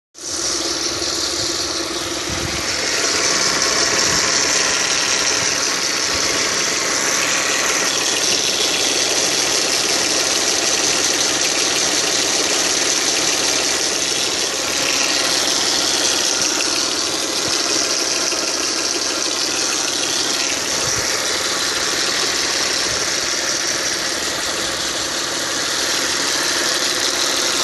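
Audi A6 C5's 2.4-litre V6 petrol engine running steadily with a knock in it whose cause the owner cannot identify.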